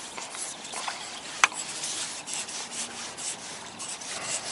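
Steady rustling and scraping noise on the microphone, typical of clothing rubbing and wind buffeting. There is one sharp click about a second and a half in.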